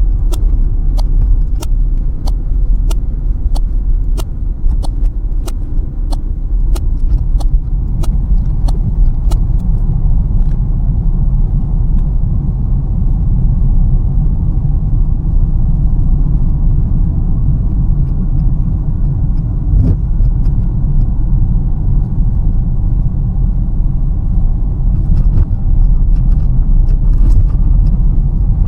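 Steady low rumble of a car's engine and tyres on the road, heard from inside the cabin while driving. A regular light clicking, about one and a half clicks a second, runs over it and stops about ten seconds in.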